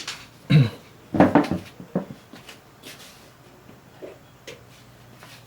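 Knocks and clicks of things being handled: a couple of louder knocks in the first second and a half, then a few lighter clicks.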